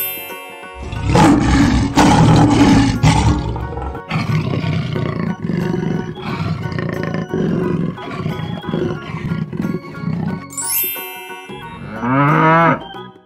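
Cartoon big cats roaring and growling over children's background music, loudest about one to three seconds in. Near the end comes a single mooing call that rises and falls in pitch.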